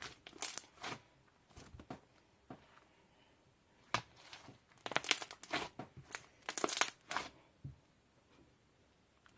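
Crinkly material being handled, crinkling and crackling in several short bunches with quiet gaps between.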